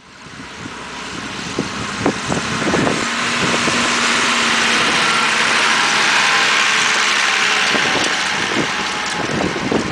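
Massey Ferguson 3085 diesel tractor pulling an Amazone Catros disc harrow through tilled soil as it passes close by: the engine and the harrow's rushing rumble grow louder, peak about halfway through and ease off as it moves away, with scattered knocks from the implement.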